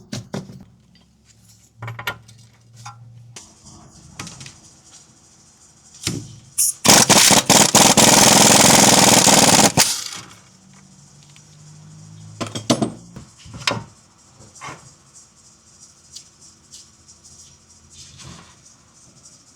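Workshop tool noise: scattered metallic clanks and knocks, and about seven seconds in a pneumatic impact wrench hammering loudly and rapidly for about three seconds, as on an axle or wheel nut.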